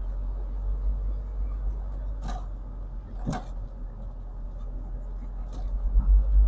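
MG TF roadster's engine and exhaust running at low speed with the roof down, a steady low rumble mixed with wind on the microphone. Two brief sharp sounds cut through, about two and three seconds in.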